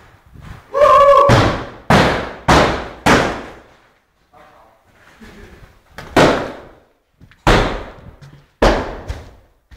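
A series of about seven loud bangs of heavy objects striking a hard floor, irregularly spaced, each ringing out in a long echo through a large empty hall.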